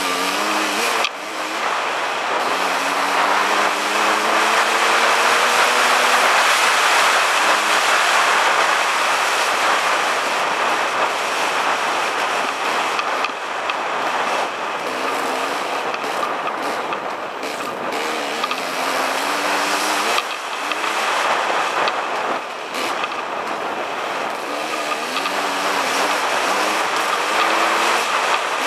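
Dirt bike engine accelerating and shifting through the gears, its pitch rising, dropping and rising again several times, under heavy wind and tyre noise.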